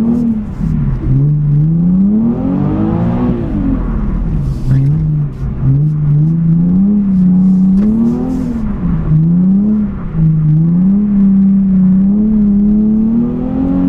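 Nissan 370Z Nismo's 3.7-litre V6, heard from inside the cabin, revving up and down again and again as the car is drifted with traction and stability control switched off.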